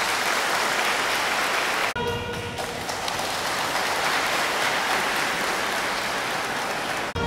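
Crowd applauding: dense, steady clapping that drops out for an instant about two seconds in and then carries on.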